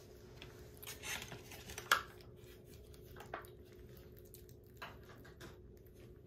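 Kittens eating wet weaning food from raised ceramic bowls: soft chewing and licking with a few light clicks and taps against the bowls, the sharpest about two seconds in.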